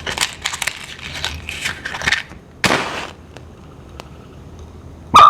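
A match scraped on a matchbox and flaring up with a brief hiss about two and a half seconds in; near the end, a loud sharp pop of hydrogen gas (made from zinc and dilute sulphuric acid) igniting at the mouth of a glass boiling tube, followed by a short ringing tone: the pop test that shows the gas is hydrogen.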